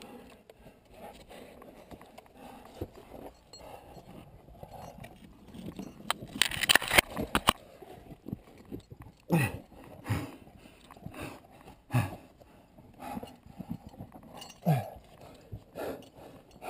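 Scuffs, knocks and scrapes of a climber moving along a rope in a narrow rock crevice: gloved hands on the rope and boots and body against the wet rock. There is a longer rasping scrape about seven seconds in and several sharp knocks after that.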